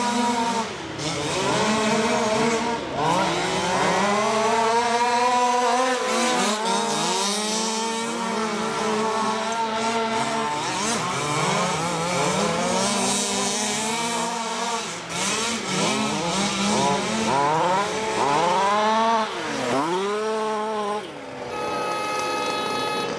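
Several large-scale RC cars' small two-stroke petrol engines revving up and down as they race, their overlapping pitches rising and falling. Near the end one engine holds a steadier note.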